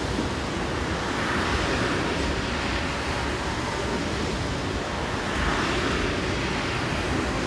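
Sea surf breaking near the shore, with wind on the microphone: a steady rush that swells every few seconds.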